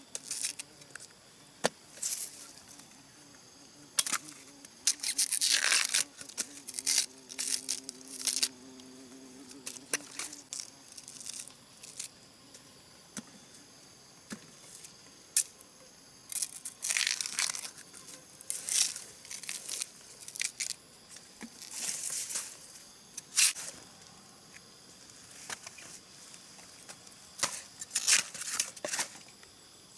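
Bamboo shoot husks being torn and stripped by hand: irregular bursts of ripping and crinkling with short pauses between.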